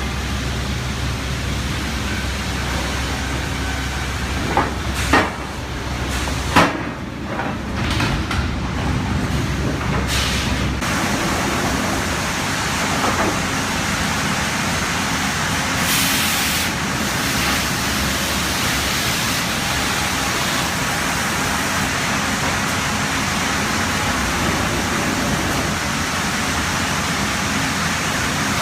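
Sawmill machinery running with a steady noise, with a few sharp knocks about five and seven seconds in. A low hum drops out about eleven seconds in.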